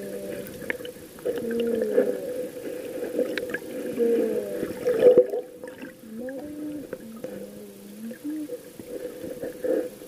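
Muffled underwater sound from a submerged camera: water gurgling, with a steady hum and many short wavering tones.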